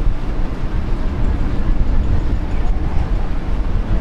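Loud, dense crowd noise with a heavy low rumble from a congregation of mourners, without clear speech.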